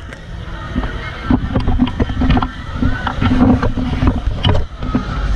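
Loud crowd hubbub in a packed street, with low rumble on the microphone and many knocks from the camera being handled and swung about; a low steady hum sounds under it through the middle.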